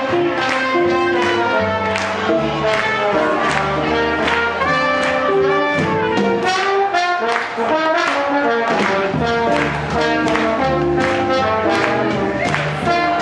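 Swing jazz band playing, with trumpet and trombone lines over a steady beat.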